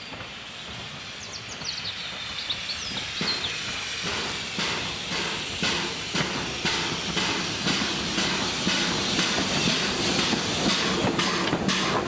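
Ivatt Class 2 2-6-2 tank steam locomotive approaching under steam with its train, its rhythmic beat and rail noise growing louder as it nears.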